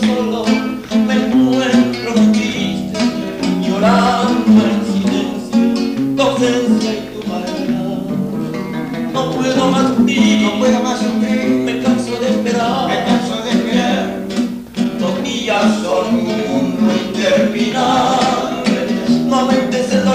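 Acoustic guitar playing an instrumental interlude of a vals, a steady stream of plucked melody notes over a bass line, between sung verses.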